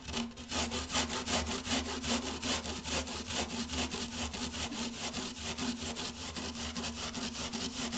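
An onion being grated on a hand grater: a long run of quick, even scraping strokes, several a second.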